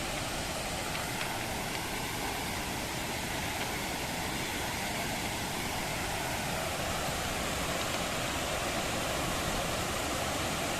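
Steady rush of running water, slowly growing a little louder.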